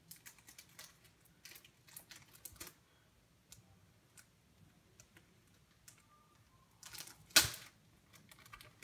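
Faint clicks and taps of sports cards in plastic holders being handled on a wooden table, with a brief louder scrape or rustle about seven seconds in.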